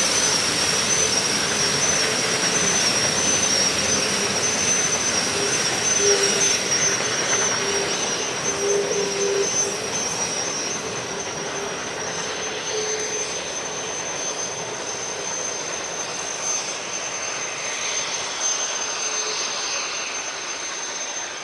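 Steam train of passenger cars behind three Shay geared locomotives rolling past and pulling away, a steady hiss and rumble that fades gradually. A thin high squeal comes and goes through the first half, then holds steady.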